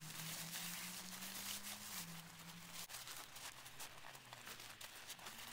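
Faint rustling and crinkling of nylon tent fabric being stuffed by hand into its stuff sack, many small scrapes in a row. A low steady hum runs underneath and steps down in pitch about two seconds in.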